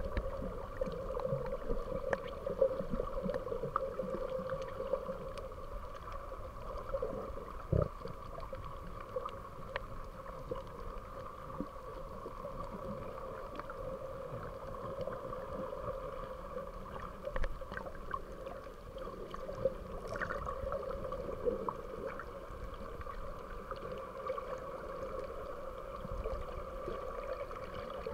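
Underwater ambience picked up by a submerged camera: a steady hum with scattered faint clicks and crackles, and one sharper knock about eight seconds in.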